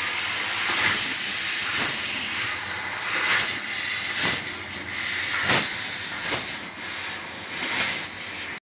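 CNC laser cutter cutting a jali lattice pattern: a steady hiss of cutting and assist gas, with short bursts roughly once a second, likely as the head pierces and starts each new cut-out. The sound stops abruptly near the end.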